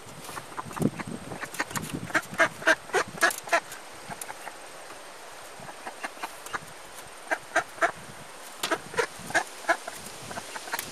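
A live duck held in a hunt-test holder, quacking in short runs of rapid calls, once about two seconds in and again about seven seconds in.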